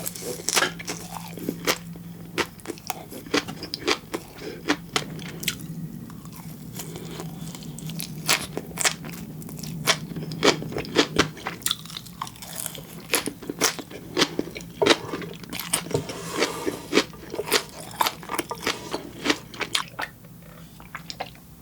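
Close-miked chewing of raw fish sashimi and flying fish roe (tobiko), with many sharp, irregular crunchy clicks and pops from the roe and wet mouth sounds.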